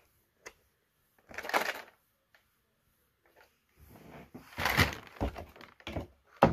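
Clear-plastic action-figure box being handled and lifted off a table: a click, a short burst of rustling and scraping about a second and a half in, longer scraping and rustling from about four to six seconds, and a sharp tap just before the end.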